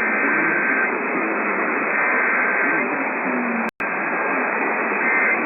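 Heavy radio static with the two-tone warbling data bursts of an Emergency Alert System SAME header coming through weakly, in short bursts about two seconds apart. The signal cuts out for an instant a little past the middle.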